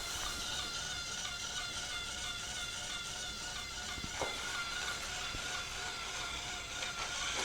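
Robot vacuum cleaner running: a steady motor whine and whir.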